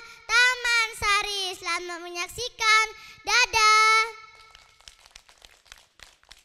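A young girl singing solo into a microphone in a high, clear voice: short sung phrases ending on one long held note about four seconds in, after which it goes quiet.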